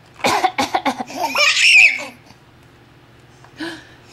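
Babies laughing at a woman's coughing: a quick run of short bursts, then a long, high-pitched giggle starting about a second in.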